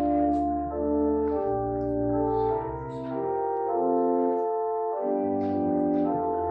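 Church prelude music: a keyboard instrument, organ-like, playing slow, held chords over a sustained bass line, the notes changing every second or so.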